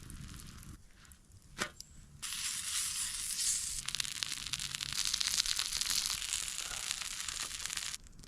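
Pork sausages and eggs sizzling as they fry over a campfire: a dense crackling hiss that starts abruptly about two seconds in and cuts off near the end. A single sharp click comes just before it.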